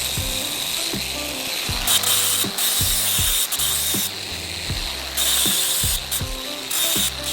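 Background music with a steady beat and a stepping bass line, with bursts of bright hiss that start and stop abruptly every second or so.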